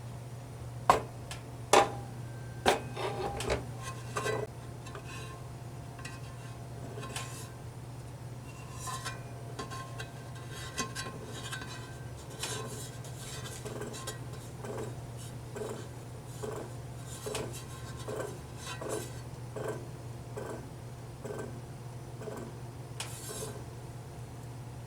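Hard plastic and metal parts of a Sony PS-LX220 turntable clicking and rattling, with three sharp clicks in the first few seconds, then lighter ticks and a fairly regular light knocking about once a second over a steady low hum.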